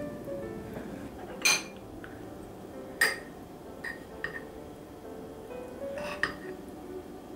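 Kitchen utensils clinking against cookware about five times, the sharpest knocks about a second and a half and three seconds in, over background music.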